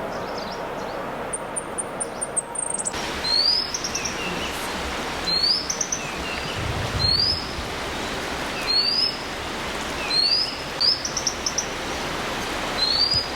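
A bunting calling: a quick high trill in the first few seconds, then short, high, rising notes repeated about every one and a half to two seconds, over a steady hiss.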